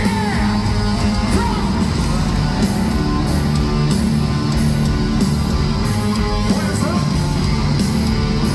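A live rock band playing a heavy electric-guitar riff over bass and drums, with a steady drum beat, in an arena.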